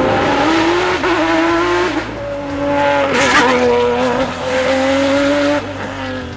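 Ferrari 575 GTC race car's V12 engine at full throttle through tight bends. Its note climbs and drops several times with the gear changes, then eases off near the end.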